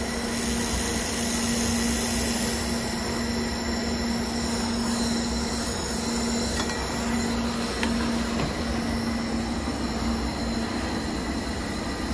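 IPG LightWELD XR handheld laser welder with its wire feeder running a continuous-wave weld on a stainless steel exhaust pipe: a steady machine hiss and hum with a few constant whining tones. A low hum breaks up and stops about ten seconds in as the weld finishes.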